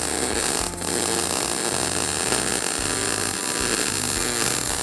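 MIG welding arc crackling and hissing steadily as a bead is laid on steel, with one brief break in the arc a little under a second in.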